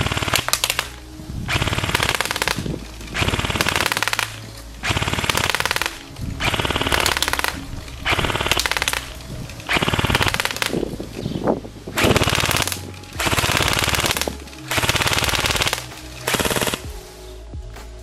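ARES AR308M airsoft electric gun (AEG) firing full-auto bursts on an 11.1 V Li-Po battery: about a dozen short bursts, each under a second, with brief pauses between them. The gearbox cycles rapidly in each burst.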